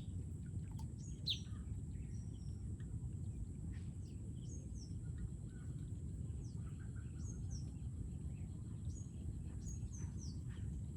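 Small birds chirping in short, high, falling calls every second or two, over a steady low rumble of outdoor noise and a faint steady high whine.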